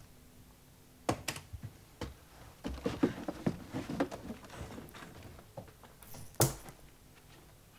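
Irregular knocks and clatter of objects being handled inside an old wooden trunk, with a sharp knock about a second in and a heavier thump near the end.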